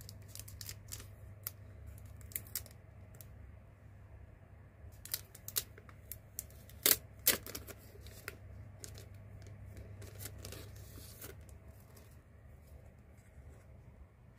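Thin clear plastic sleeve handled and peeled off photocards: scattered light crinkles and clicks, with two sharper snaps about seven seconds in, over a low steady hum.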